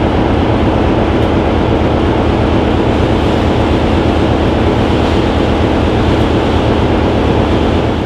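Class 33 diesel-electric locomotive D6515's Sulzer eight-cylinder engine idling, a loud, steady sound with a low hum running through it.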